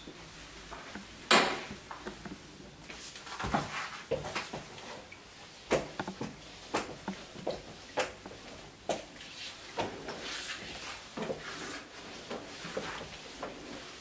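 Floor mopping on a laminate floor: the mop head swishing and the mop knocking and clacking against the floor, with footsteps; irregular knocks throughout, the loudest about a second in.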